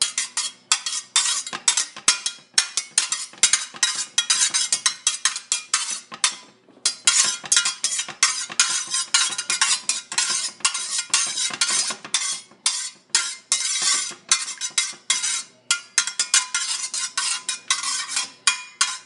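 Metal slotted spatula scraping and clinking around a skillet as oil is stirred, in quick repeated strokes with a short pause about six seconds in.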